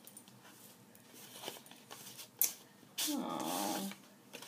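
Paper envelope being handled and opened, with soft rustling and a sharp crack of paper about two and a half seconds in. About three seconds in comes a louder wavering vocal sound, just under a second long.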